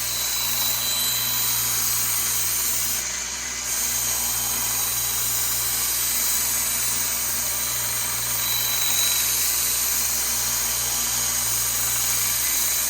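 Harbor Freight 1x30 belt sander running steadily with a 400-grit belt, grinding the blade of a butcher knife to take out nicks and reshape it. The grinding hiss drops briefly about three seconds in.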